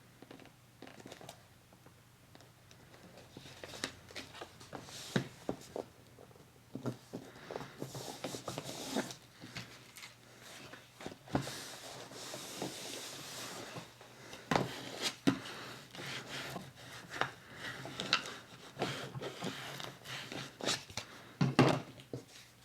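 Paper being handled and rubbed down on a journal page: rustling and rubbing with scattered light taps and clicks, a longer stretch of rubbing a third of the way in, and the sharpest tap near the end.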